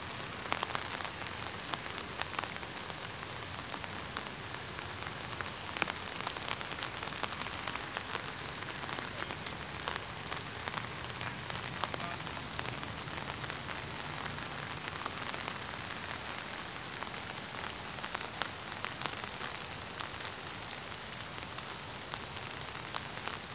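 Steady rain falling, an even hiss with scattered ticks of single drops.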